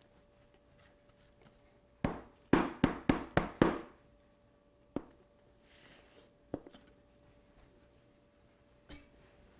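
Metal box grater knocked about six times in quick succession against a plastic cutting board about two seconds in, followed by a few single light knocks.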